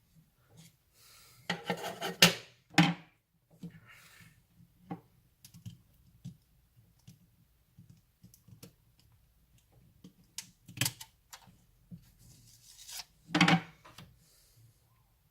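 Clicks, taps and short scrapes of hands working on the plastic case and parts of a Fujitsu Lifebook U772 laptop, in irregular bursts with a few louder knocks.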